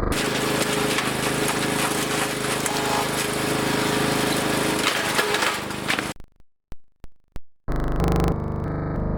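Wood chipper running and chipping brush, a dense mechanical din with a steady engine hum, which cuts off abruptly after about six seconds. A short gap follows with three brief sharp sounds, then music with synthesizer and guitar starts near the end.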